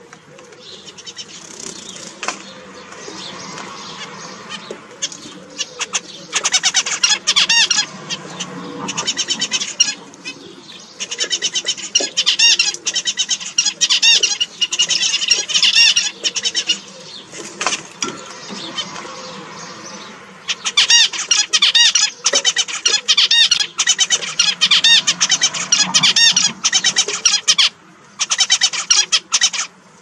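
Zebra finches calling: runs of loud, nasal, buzzy notes repeated rapidly, in stretches of a few seconds with short pauses between.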